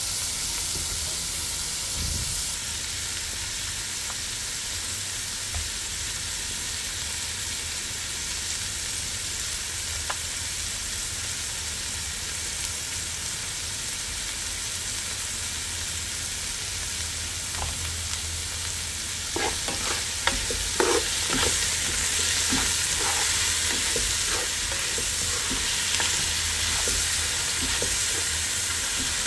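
Igado sizzling steadily as it fries in a pan. From about two-thirds of the way through, a spatula clicks and scrapes against the pan as the food is stirred.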